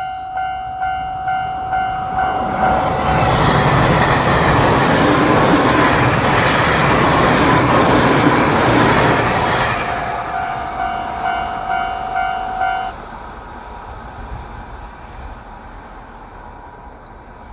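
Japanese level-crossing bell ringing in quick repeated strikes as a JR Shikoku 8000 series limited express electric train comes through and passes loudly for about seven seconds, with a falling whine. The bell is heard again as the train goes and stops about thirteen seconds in, leaving the fading rumble of the departing train.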